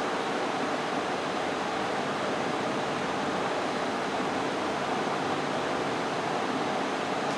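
Steady, even hiss of background noise with a faint low hum underneath. There are no distinct events and no speech.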